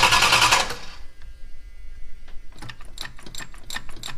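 Starter cranking the 1979 Chrysler Cordoba's V8 over in steady, rapid pulses without it catching, cut off abruptly under a second in; the new carburetor's float bowl has not yet filled with fuel. A run of light, irregular clicks follows near the end.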